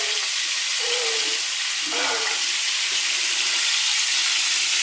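Breaded razor clams frying in hot coconut oil, with a steady sizzle throughout.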